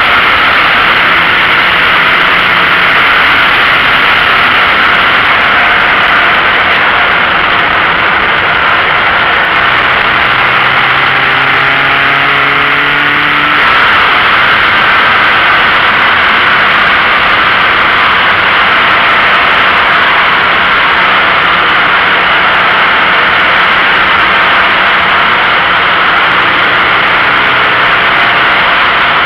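Steady wind and tyre roar on a low, outside-mounted camera on a stock Toyota GT86, its flat-four engine faintly audible underneath. The engine note climbs for a few seconds near the middle, then drops back as if for a gear change.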